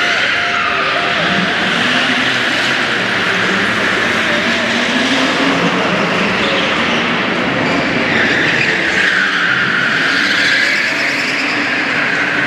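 BMW 3 Series drift cars (E36 and E30) sliding through tight corners: engines revving up and down under throttle and tyres squealing. The squeal is strongest at the start and again from about eight seconds in.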